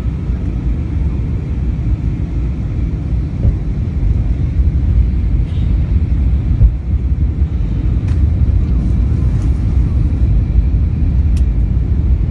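Steady low rumble of a passenger airliner's engines and airflow, heard inside the cabin, with a couple of faint clicks in the second half.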